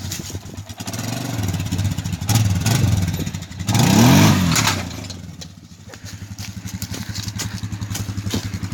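Small lawn mower engine running on a homemade go-kart. It revs up loudly about four seconds in, then drops back to a steady, lower run.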